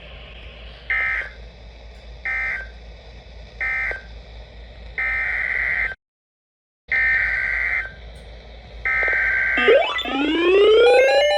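Emergency Alert System SAME data tones: three short buzzy bursts, the end-of-message code, then after a brief dead-silent cut, about-one-second buzzy bursts of the next alert's header. Near the end comes a rising glide of several tones together.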